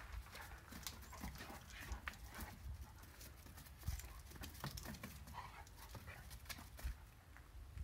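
A young Great Dane and a rooster scuffling on dry, leaf-strewn ground in play: a scatter of quick footfalls, rustles and small thumps, the sharpest about four seconds in.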